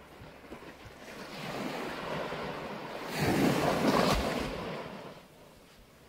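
Small wave breaking and washing up a sandy shore at the water's edge, building from about a second in, loudest just past the middle, then fading away.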